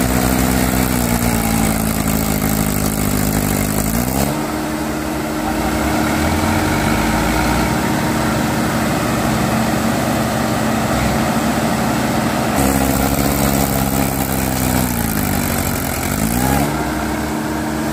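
Diesel tractor engines working under load as a Mahindra 575 DI tows a mud-stuck tractor and its loaded trolley. The engine note twice sags over about three seconds as the engine lugs, then quickly climbs back and holds steady.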